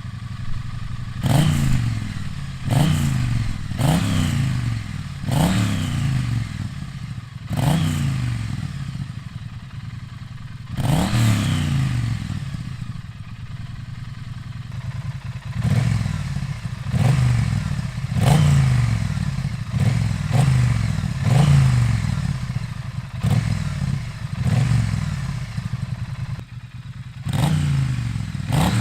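Triumph Street Twin's 900 cc parallel-twin engine idling through its stock silencers with a de-cat X-pipe, blipped sharply again and again: each blip jumps up in revs and sinks back to idle. The blips come in runs about one to one and a half seconds apart, with a few longer stretches of plain idle between.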